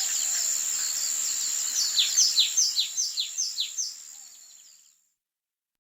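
Songbirds chirping: a rapid run of down-slurred chirps, about four a second, over a steady high-pitched tone. The whole thing fades out to silence about five seconds in.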